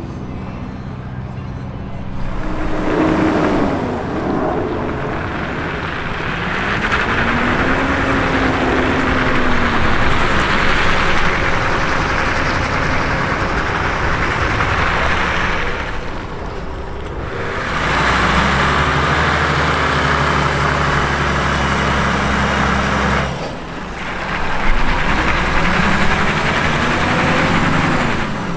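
Volvo FM heavy truck's diesel engine running as it hauls a heavy load. Its pitch rises and falls several times as it revs, and a steadier low drone runs for a few seconds past the middle.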